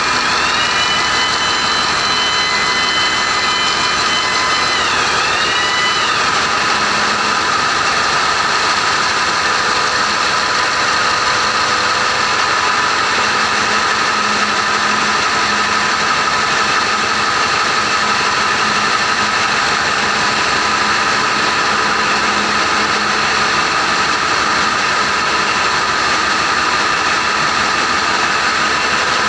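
Ship's engine-room machinery: diesel engines running, a loud, steady drone that does not let up. Over the first few seconds a high-pitched whine sits on top of it, then dips and fades out about six seconds in.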